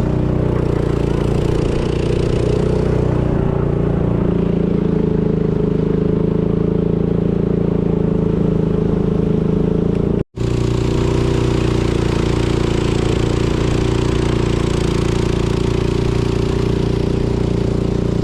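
A boat's engine running steadily under way, with a constant low drone over a noisy wash. The sound drops out for an instant about ten seconds in, then carries on the same.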